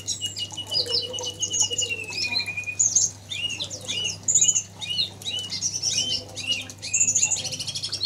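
Small birds chirping and twittering: a rapid string of high notes that slowly falls in pitch over the first three seconds, then many short high chirps.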